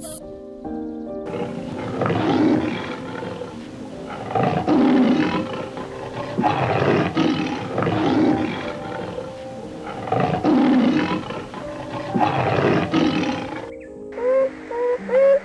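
A large animal giving a series of about six loud, hoarse calls, roughly two seconds apart, over steady background music.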